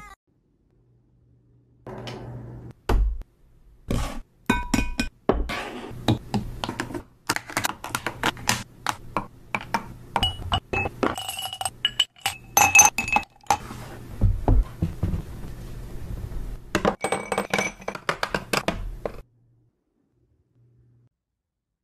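Makeup containers (plastic compacts, lipstick tubes and jars) clicking, clinking and knocking as they are picked up and set down on a tray. A dense run of small taps, some ringing briefly, starts about two seconds in and stops a couple of seconds before the end.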